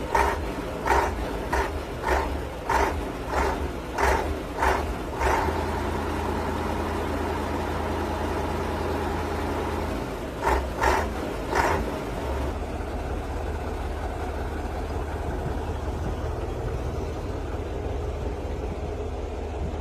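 Dump truck's engine running at a steady idle. Over it come a series of sharp knocks about every 0.6 s for the first five seconds, and three more about ten seconds in.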